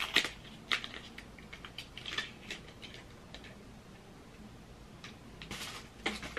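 Small cosmetic packages being handled and opened by hand: scattered light clicks and taps of cardboard and plastic, with a short rustle near the end.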